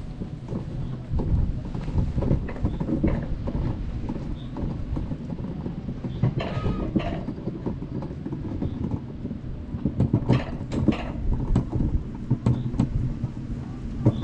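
Alpine coaster sled running on its steel rail track: a steady low rumble of the wheels with quick clicks and rattles, and louder clattering about six seconds in and again around ten to eleven seconds.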